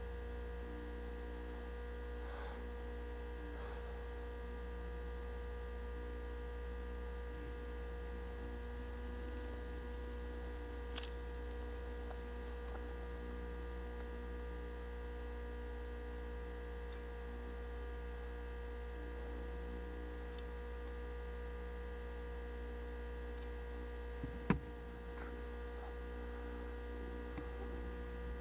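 Steady electrical hum: a low drone with several fixed tones held above it. A faint click comes about eleven seconds in, and a sharp, louder click comes a few seconds before the end.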